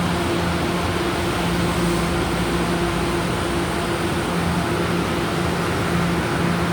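Cabin noise inside a moving electric passenger train: a steady rush of running noise with a low hum that fades in and out.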